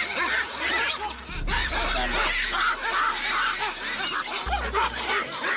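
A troop of baboons calling at a leopard: many overlapping shrill calls and screams, the alarm and mobbing noise of baboons facing a predator.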